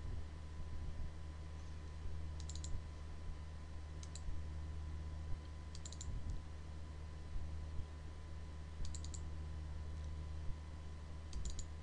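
Computer mouse clicking in five short clusters of a few quick clicks each, spaced about two seconds apart, over a steady low hum.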